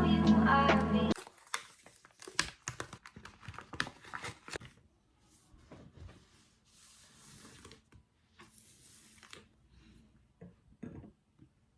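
Background music that cuts off about a second in, followed by quiet handling sounds: scattered light clicks and rustles, two short soft hisses, and a couple of small knocks near the end.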